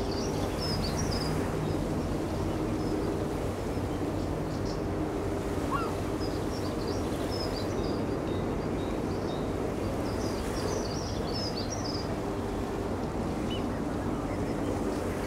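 Outdoor estuary ambience: a steady low mechanical drone holding several even tones, over a haze of wind and water noise. Small birds chirp in short high clusters near the start, about six seconds in, and again around ten to twelve seconds in.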